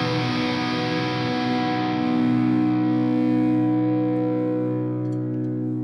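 Background music: a distorted electric guitar chord held and left ringing.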